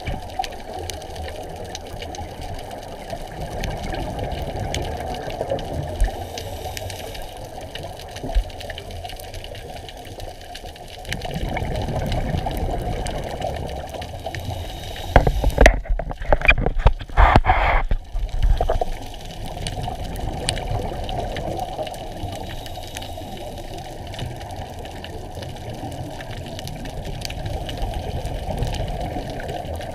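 Muffled underwater water noise, concentrated low, heard through a dive camera. About halfway through comes a louder burst of broken, crackling rushing noise lasting about three seconds.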